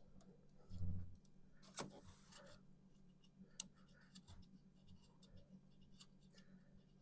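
Faint, scattered metallic clicks and light taps as the loosened distributor hold-down bolt and bracket are handled, with a soft low thump about a second in, over a faint steady hum.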